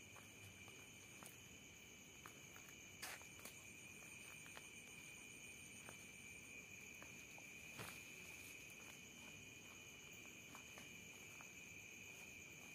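Faint steady chorus of night insects, crickets chirring in two high steady tones, with a few soft clicks and rustles of footsteps in the undergrowth.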